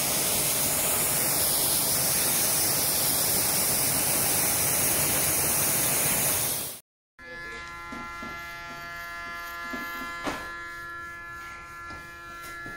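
A jet of water spraying onto a car's rear side panel, a loud steady hiss that cuts off about seven seconds in. Then an electric hair clipper buzzes steadily and more quietly at a man's head, with one short tap about ten seconds in.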